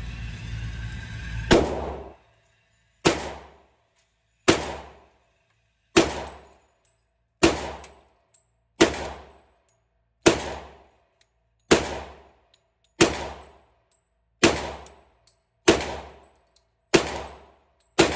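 Glock 21 .45 ACP pistol in a micro conversion kit fired in slow, even single shots, thirteen of them about a second and a half apart, each trailing off briefly. It cycles through the magazine without a misfire. A steady noise runs underneath until the first shot.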